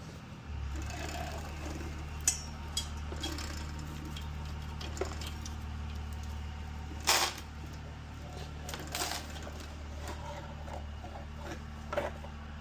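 Motorcycle drive chain being pulled through onto the sprocket, with scattered metal clicks and clinks over a steady low hum that starts about half a second in. The loudest clink comes about halfway through.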